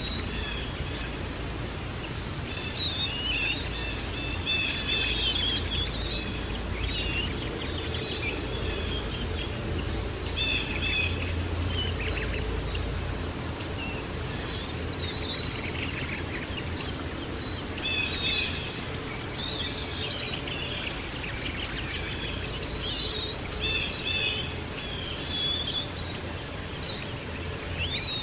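Songbirds chirping and twittering, many short high calls overlapping throughout, over a steady low background rush with a deep rumble that eases about halfway through.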